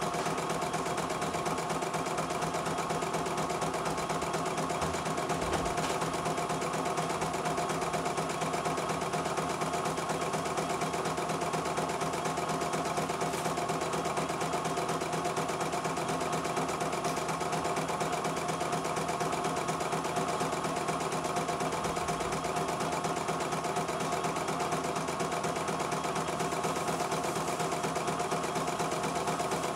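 CNY E900 portable computerized embroidery machine stitching a design automatically: a steady, rapid needle clatter over the hum of its motor, running at an even speed without pause.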